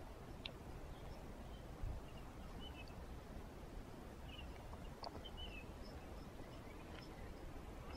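Faint outdoor background with a few short, high bird chirps scattered through it.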